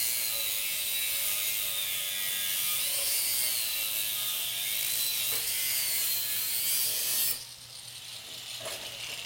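Angle grinder with a zip cut-off disc cutting through a steel forge shell, a harsh steady grinding with a high whine that sags and recovers as the disc is worked back and forth in the cut. The cutting noise drops off suddenly about seven seconds in as the grinder comes off the work.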